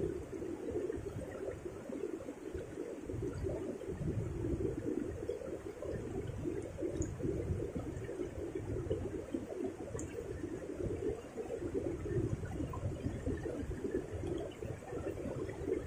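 Fast river current rushing through rocky rapids, a steady noise of moving water.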